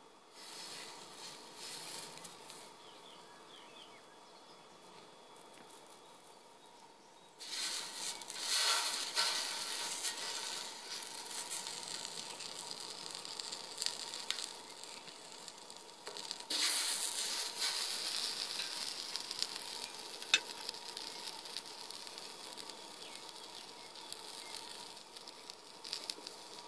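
Marinated chicken drumsticks and red pepper sizzling on the hot grate of a Florabest charcoal table grill. The sizzle jumps suddenly louder about a quarter of the way in and again just past halfway, with a single sharp click near the three-quarter mark.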